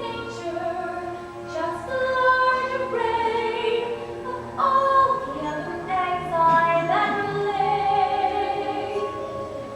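Voices singing a number from a stage musical over musical accompaniment, with long held notes that step from pitch to pitch.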